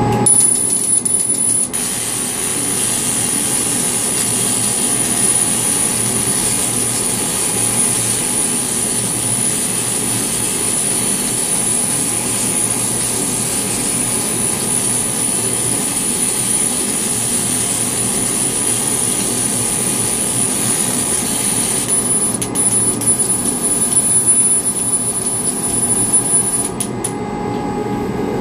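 Motion cutter laser cutting machine running while it cuts card: a steady loud rush with a thin high whine over it. From about 22 seconds in the noise turns uneven and fluctuating.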